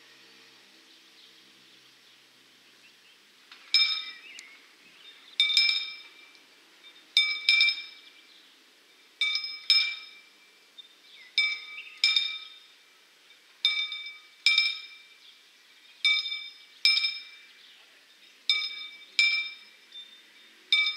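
Level-crossing warning bell ringing as the crossing barriers begin to lower. It starts about three and a half seconds in and rings in pairs of clear metallic strikes, a double ding about every two seconds. Birds chirp faintly before it starts.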